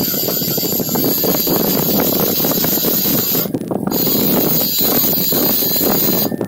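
Bench grinder running with abrasive finishing wheels, a small metal banjo oil can pressed against them, giving a steady high squeal. The squeal breaks off briefly past the middle as the can is lifted off, then resumes.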